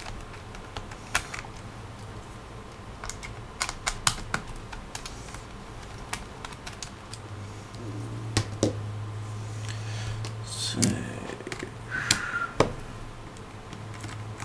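Scattered small clicks and taps of a screwdriver working the screws that hold a laptop's battery into its chassis.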